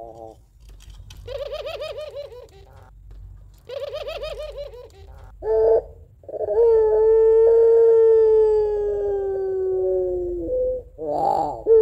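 Barbary dove (puter pelung) calling: two quavering, rolling trills, a short note, then one long drawn-out 'crying' coo of about four seconds that sinks slightly in pitch, with a short burst of sound near the end.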